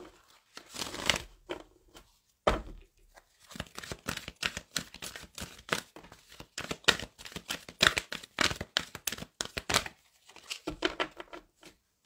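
A deck of oracle cards being shuffled by hand: runs of quick papery clicks and swishes as the cards slide and slap against each other, with short pauses between runs.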